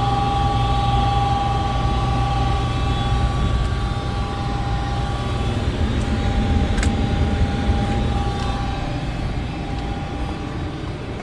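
Home heat pump system running: a steady mechanical whir with a low hum and a high-pitched tone that fades out about halfway through.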